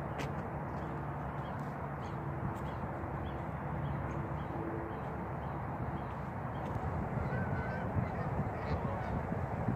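Canada geese calling faintly in short repeated calls over a steady low background hum.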